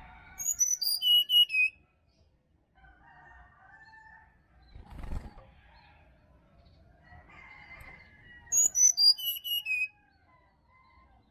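Brown-chested jungle flycatcher singing: two phrases of quick, high whistled notes stepping downward, each about a second and a half long, one just after the start and one about eight and a half seconds in. Fainter calls of other birds come in between.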